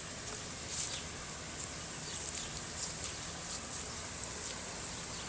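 Outdoor ambience: short high chirps repeating every half-second or so over a steady high hiss and a low even rumble.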